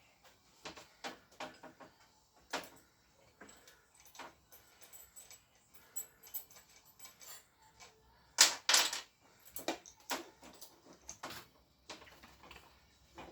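Metal parts clinking and knocking as the back wheel is fitted to a Honda ST50 moped: a string of light, irregular clicks and taps, with two louder knocks about eight and a half seconds in.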